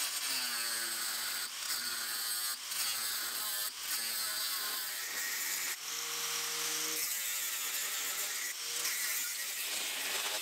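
Electric arc welder laying a continuous weld on steel angle bracing: a steady hiss, with a few brief breaks in the first few seconds.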